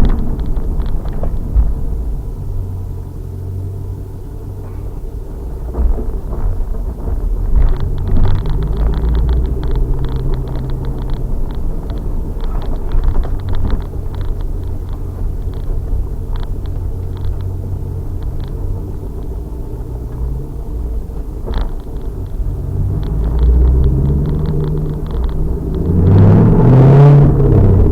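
2000 Pontiac Trans Am Firehawk's 5.7-litre LS1 V8 running hard on a race track, its pitch rising and falling with throttle and gear changes. Near the end it is loudest, climbing and then dropping sharply.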